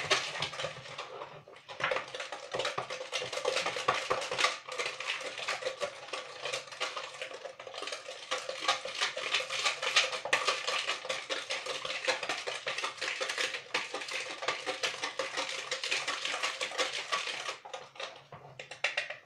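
Hand-stirring cake batter in a mixing bowl: a fast, continuous clatter of the utensil against the bowl, with short lulls about a second and a half in and near the end.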